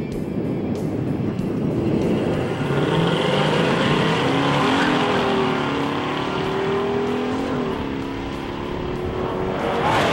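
AMC Hurst SC/Rambler's 390 V8 accelerating hard down a drag strip. The engine note climbs and drops back at each gear change, and is loudest near the end as the car passes close.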